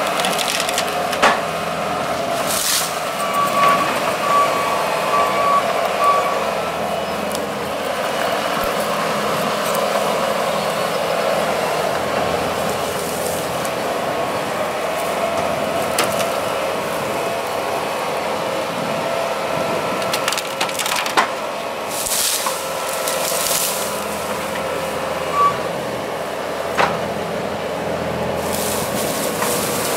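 Heavy machinery running steadily while wood cracks and splinters as trees are broken up, with sharp snaps scattered throughout. A short run of backup-alarm beeps sounds about four seconds in.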